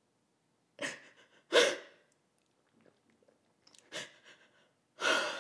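A woman sobbing: four sharp, gasping sobs with quiet pauses between them, the loudest about a second and a half in.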